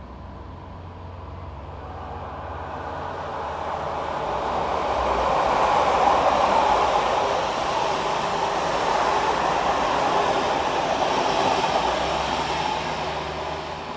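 Two coupled Class 69 electric multiple units (69D+69D) passing close by: wheel and rail noise grows as the train approaches, is loudest from about six to twelve seconds in, then eases off near the end.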